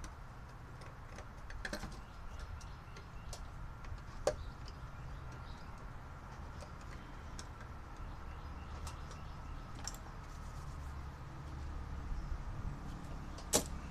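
Scattered light clicks and taps of a black-handled box cutter being worked against and handled on a corrugated cardboard box, with a sharper click near the end, over a faint steady hum.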